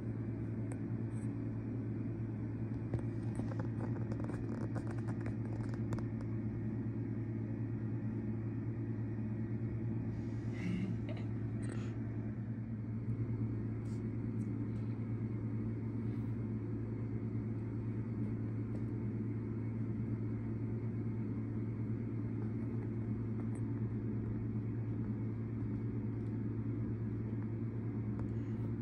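A steady low hum that runs unchanged, with a few faint cardboard rustles about ten to twelve seconds in as the cat moves in the box.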